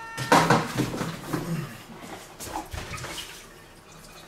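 A short electronic beep right at the start, the oven's signal that it has finished preheating. Then a spell of wet crinkling and squelching as a marinade-filled plastic vacuum pack of spare ribs is handled, loudest in the first second and a half and quieter after.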